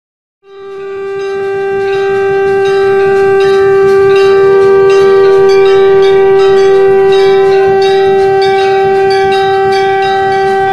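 Conch shell (shankh) blown in one long held note that swells in about half a second in, with a bell ringing repeatedly behind it.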